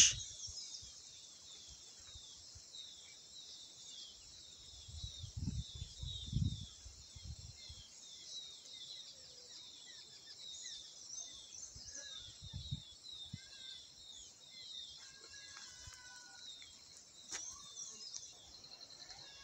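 A faint, steady, high-pitched insect chorus from the grass, with short chirps repeating throughout. A few low thumps come around five to seven seconds in and again a little after twelve seconds.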